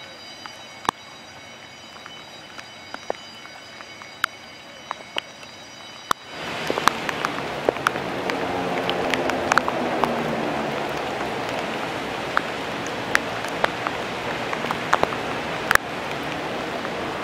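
Steady rain falling, with drops ticking sharply close to the microphone. About six seconds in, the rain sound jumps suddenly to a louder, heavier hiss.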